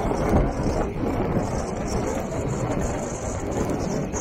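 A vehicle driving on a wet dirt road in rain: a steady low rumble of tyres and road noise, with rain on the windscreen. A thin high hiss joins about a second and a half in.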